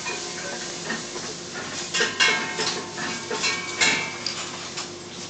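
Kitchen clatter: metal utensils, pots and dishes clinking and knocking, with several sharp strikes, the loudest about two seconds in and again near four seconds, over a steady background hum.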